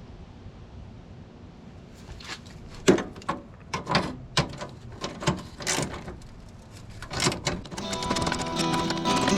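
A series of sharp, irregular knocks and clicks, then strummed flamenco-style acoustic guitar music coming in near the end and growing louder.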